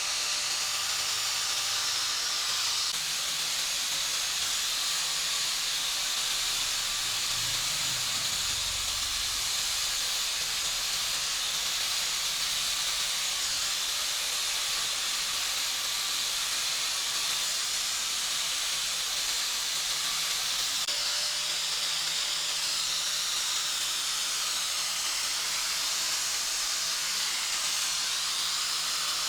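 Steady, unbroken hiss of compressed air from an air tool in use.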